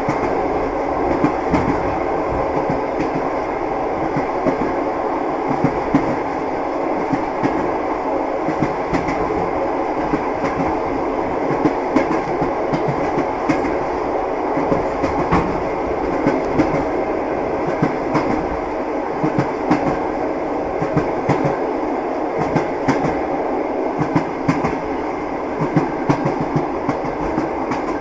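Train wheels clacking over rail joints with a steady running rumble, the knocks coming close together and unevenly spaced.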